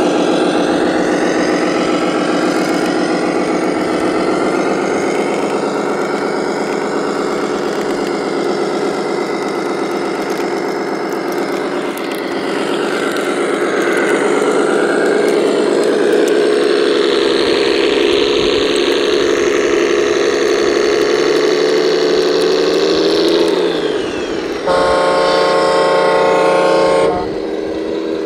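Engine sound from RC trucks' electronic diesel sound modules, running steadily and rising a little as the tractor tows the stuck truck. A horn sounds for about two seconds near the end.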